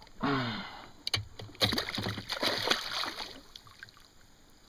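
A hooked bass thrashing and splashing at the surface as it is reeled in to the kayak, for about two seconds in the middle. A brief pitched sound comes right at the start.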